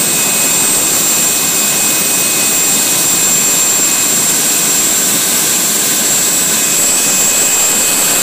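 A Boeing 747-400's Pratt & Whitney PW901A auxiliary power unit, a gas turbine, running steadily with its bay doors open: a loud, even rush of turbine noise with a steady high whine over it.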